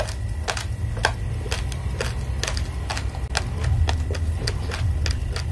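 Raw red rice grains crunching between the teeth as a mouthful is chewed, in sharp cracks about twice a second.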